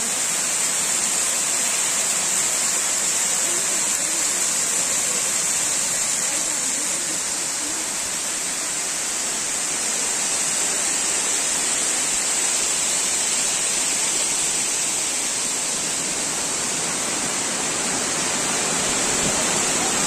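Water of a tiered waterfall pouring over rock ledges into pools, a steady rushing with an even high hiss above it.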